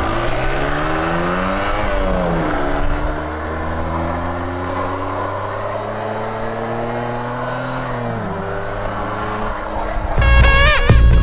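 Car engine accelerating through the gears: its pitch climbs, drops at a gear change about two seconds in, climbs slowly for several seconds, and drops again at another change about eight seconds in. Louder music comes in near the end.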